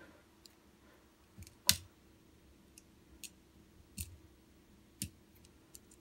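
Small metal clicks from a fold-out tool on a Victorinox Cybertool pocket knife being moved against its backspring into and out of its half stop. The clicks are scattered and uneven, the sharpest about two seconds in, the rest fainter ticks.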